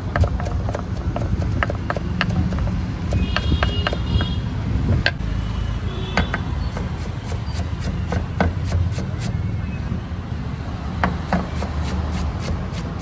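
Roadside street-food stall ambience: a steady low rumble with many sharp clicks and taps throughout, and a short high-pitched tone a little over three seconds in.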